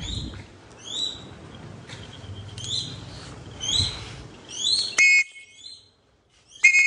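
Shikra calling: a run of short, high chirping calls about once a second. Two louder, sharper calls come about five seconds in and near the end.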